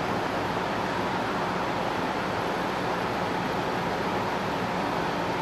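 Electric fan running: a steady, even whoosh with no other events.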